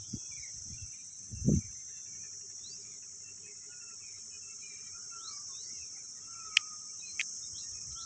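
Steady high-pitched drone of insects, with scattered short bird chirps over it. A low thump comes about a second and a half in, and two sharp clicks near the end.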